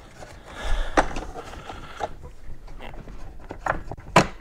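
A few light clicks and knocks of hardware being handled while a downrigger is fitted onto its pivot mount bracket, the sharpest knock just before the end.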